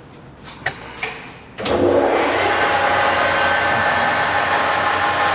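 A few light clicks, then about a second and a half in the Moriseiki MS-1250 engine lathe's spindle starts and runs at a steady speed, a loud even whir with a steady whine from the geared headstock.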